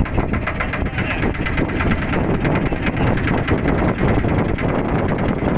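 Motorboat engine running steadily, with wind buffeting the microphone.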